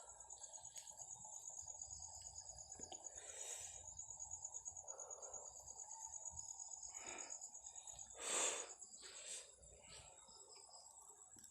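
Insects trilling continuously at a high pitch with a fast, even pulse, cricket-like night ambience. About eight seconds in, a brief noisy swish stands out as the loudest sound.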